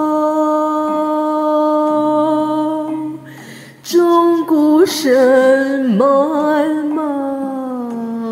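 A solo voice singing long held notes of a Buddhist devotional song over soft accompaniment. One steady note is held for about three seconds; after a brief break, a second long note slides and wavers in pitch before settling.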